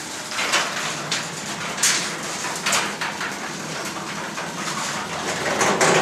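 Sectional garage door rolling up on its electric opener, with the rattle and clicking of the door running in its tracks.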